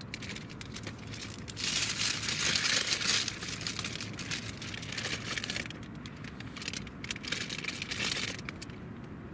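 Plastic bag crinkling around a French baguette as it is handled and bitten into, in irregular bursts, loudest between about one and a half and three seconds in.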